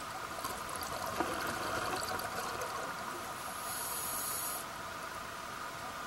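A scuba diver's breathing heard underwater: a burst of bubbling exhaled air with a sharp click in the first couple of seconds, then a short hiss of inhalation through the regulator about four seconds in, over a steady faint hiss.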